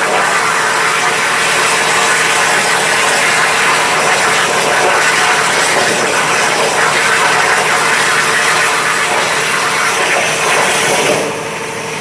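MTA FineCut-1530S CNC plasma cutter cutting steel plate: the plasma torch's arc gives a loud, steady hiss, which drops away about eleven seconds in as the cut stops.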